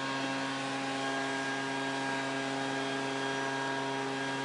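Steady mechanical hum of a motor running at constant speed: several fixed tones over a hiss, unchanging throughout.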